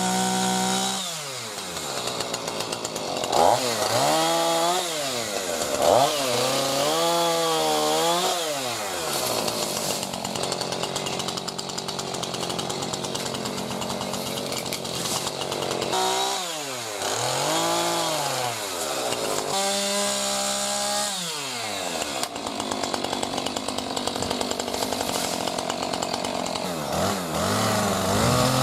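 A power saw's motor repeatedly revving up and slowing down while cutting wood, its pitch rising and falling in sweeps of a second or two, with steadier running between.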